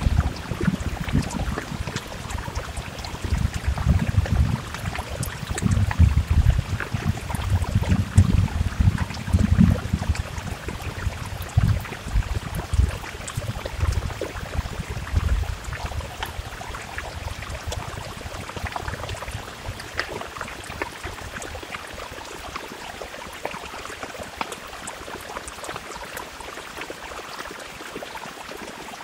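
Heavy rain falling and running down a window: a steady hiss with scattered drop ticks. Under it is an irregular low rumble that dies away about halfway through.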